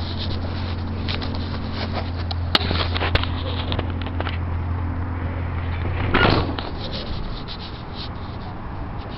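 Electric scooter's motor humming steadily with a low buzz that cuts off about six seconds in. Two sharp clicks and a rustle of the camera being handled come just before it stops.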